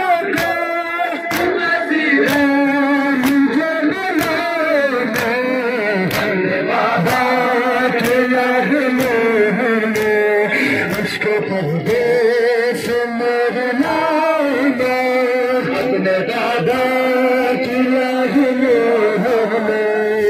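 Male voices chanting a Muharram mourning lament (noha), kept in time by a steady beat of sharp slaps about once a second from the crowd's chest-beating (matam).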